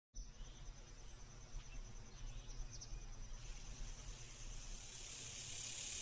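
Faint forest ambience: an insect trilling in rapid, even pulses over a low rumble, with a hiss that slowly swells.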